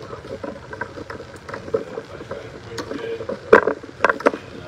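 Indistinct murmur of voices in a large room over a steady background hiss, with several sharp knocks, the loudest about three and a half seconds in.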